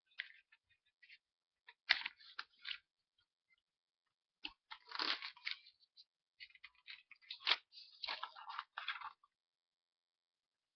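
Sheets of notebook paper rustling and crinkling as they are handled and flipped: irregular crackly rustles in several clusters that stop near the end.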